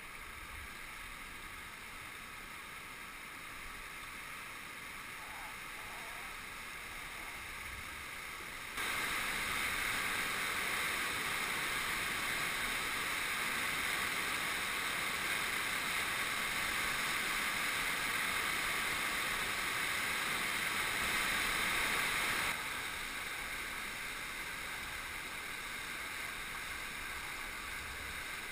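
Rushing water from the river falls and rapids around a kayak, a steady noisy rush. It jumps suddenly louder about nine seconds in and drops back down a little over twenty seconds in.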